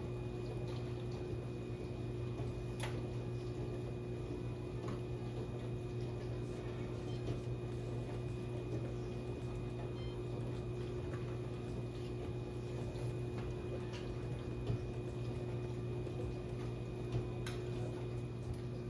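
A steady low electrical hum from a running appliance, with a few faint clicks and taps.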